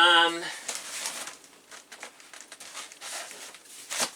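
A brief held "hmm"-like voice sound at the very start, then rustling and light knocks of cardboard boxes being handled and moved, with a sharper knock near the end.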